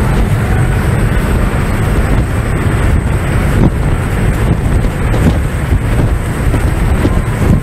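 Loud wind buffeting the microphone on the open deck of a speedboat running fast, over the steady low rumble of the boat under way.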